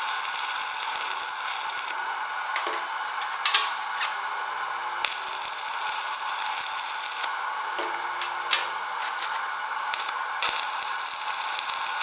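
Stick (arc) welding: the electrode's arc hisses and crackles steadily, with sharper pops every couple of seconds.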